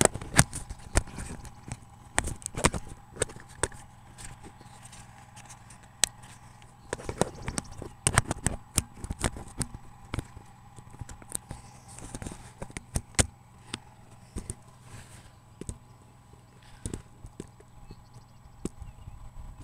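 Handling noise of a small camera being set up by hand: irregular knocks and clicks, in clusters, over a faint steady hum.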